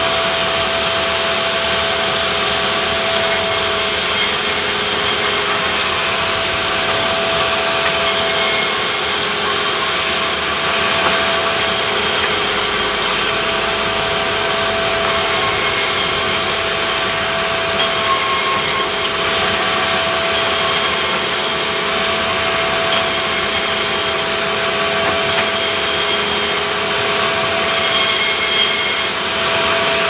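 Sawmill band saw running and sawing lengthwise through pulai logs: a steady machine whine over a continuous sawing hiss.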